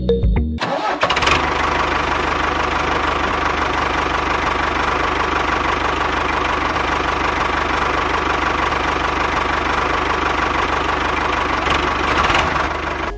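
Tractor engine starting up about half a second in, then running steadily with a fast, even chug. It cuts off suddenly at the end.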